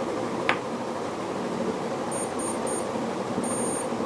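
Startup beeps from a brushless speed controller (ESC) sounded through its connected brushless motor on power-up: three short high beeps, then one longer beep near the end, signalling that the ESC has armed with the throttle at minimum. A short click about half a second in.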